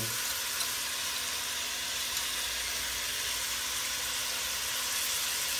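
Pork ribs and chopped onion sizzling steadily in the hot inner pot of an Instant Pot on its high sauté setting.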